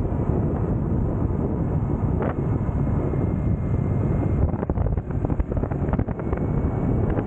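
Wind buffeting the microphone on a moving motor scooter, over the scooter's engine running steadily at cruising speed.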